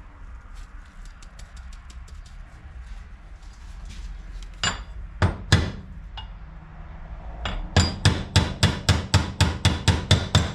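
Hammer tapping a small pin into the grinder dog's body to hold the cam spring. There are three separate taps around the middle, then a quick run of about five taps a second near the end.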